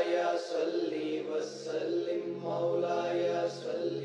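Chanted vocal intro music: a voice chanting a slow, wavering melody over a steady low drone.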